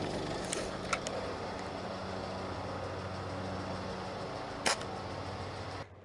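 A steady engine-like hum with a few sharp clicks over it, the loudest late on; it cuts off abruptly near the end.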